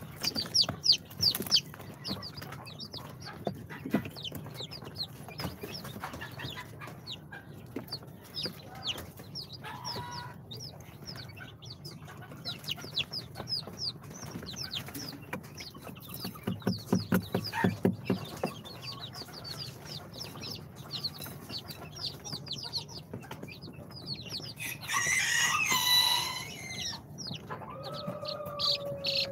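Day-old chicks peeping continuously: many short, high, falling peeps overlapping. About 17 seconds in comes a quick run of knocks lasting about a second and a half, and about 25 seconds in a louder, harsh call lasting about a second.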